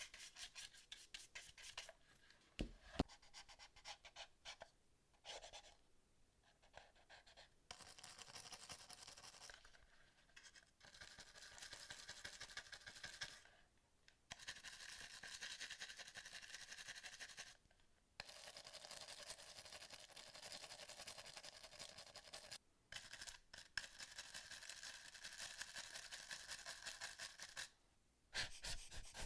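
Rapid back-and-forth scrubbing of a brush on the plastic parts of a PS4 controller, in runs of a few seconds with short pauses between them. A single sharp knock about three seconds in.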